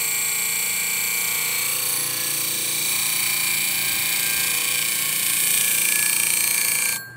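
Low-speed 8-inch bench grinder running steadily while the ends of a steel bandsaw blade are ground against its wheel, a hissing whine with several fixed tones. It cuts off suddenly near the end.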